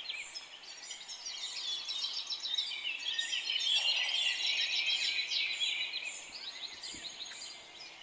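Many small birds chirping at once in a dense, overlapping chorus, swelling louder in the middle.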